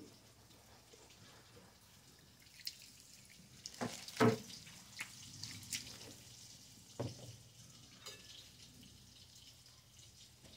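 Quiet cooking-area sounds: liquid dripping and scattered light clicks and knocks of cookware, with a sharper ringing clink about four seconds in and another knock about seven seconds in.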